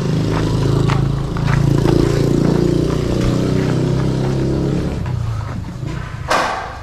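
Motorcycle engine running at idle, swelling briefly about two seconds in, then fading away from about five seconds in. A short, loud rushing noise comes near the end.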